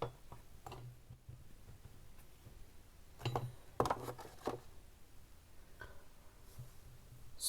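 Faint switch clicks and handling noises. There is a sharp click at the start, then a cluster of clicks about three to four and a half seconds in, as a room light is switched off and a flashlight's button is pressed. A faint low hum sits underneath.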